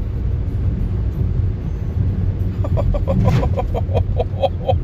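Car driving over a road covered in a couple of inches of hail, heard from inside the cabin as a steady low rumble. About halfway through comes a rapid run of short pitched pulses, about six a second, that stops near the end.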